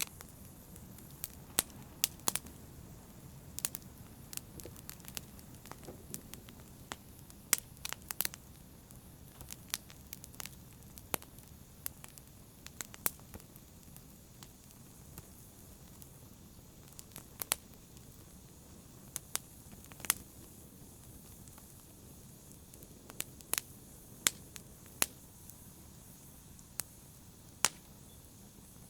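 Wood fire crackling in a fireplace: irregular sharp pops and snaps, a few a second, over a low steady hiss and rumble of the flames.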